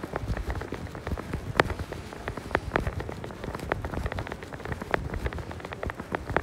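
Footsteps and handling noise on a handheld phone's microphone while walking: a dense, irregular patter of clicks and knocks over a low rumble.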